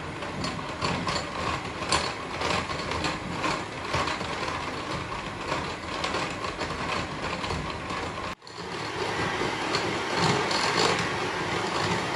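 Electric hand mixer running steadily, its beaters creaming butter and icing sugar in a glass bowl. The sound cuts out for an instant about eight seconds in, then carries on.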